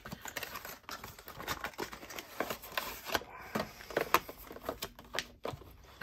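Cardboard knife box being unpacked by hand: the box sleeve slides off and a paper insert rustles, with scattered light clicks and taps of the packaging.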